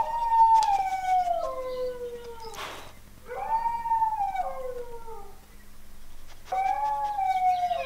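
Recorded dog howls played from a laptop's speakers: three long howls, each sliding downward in pitch. A short burst of noise falls between the first and second.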